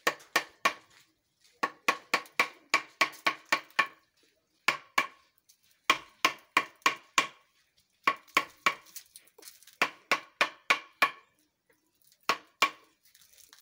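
Wooden mallet striking a yellow-handled carving chisel driven into wood, in runs of quick blows, about four or five a second, broken by short pauses. Each blow gives a sharp knock with a brief ring.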